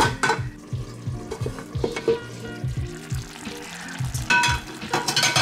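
Cherry tomatoes, onion and feta sizzling in a frying pan, over background music with a steady beat. A few sharp metallic clinks come from the pan's steel lid, one right at the start and more about four to five seconds in.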